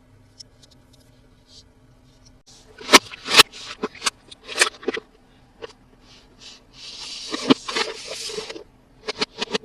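Hands handling toy packaging and small toy parts: a string of sharp plastic clicks and taps, then about a second and a half of crinkling rustle, followed by more quick clicks near the end.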